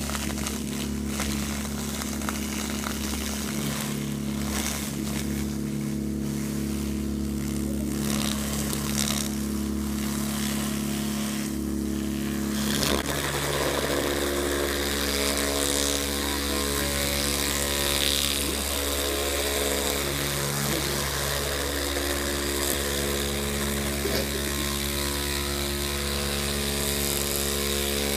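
Loudspeaker driver with oobleck on its cling-film-covered cone, driven with a steady low tone that comes out as a buzzing hum. The buzz changes character about thirteen seconds in.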